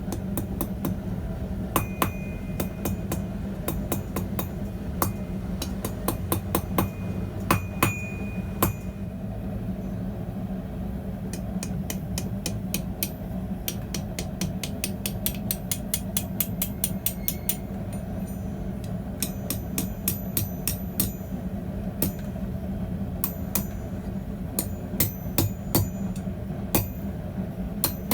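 Hand-hammer blows on hot steel over a small Chinese bread loaf anvil, coming in runs of quick strikes with short pauses between, each hit ringing high off the anvil. A steady low hum runs underneath.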